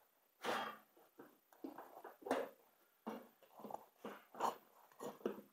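Hands working a snowblower tire loose on its steel rim: short, irregular rubbing and bumping noises of rubber against metal, about eight in a few seconds.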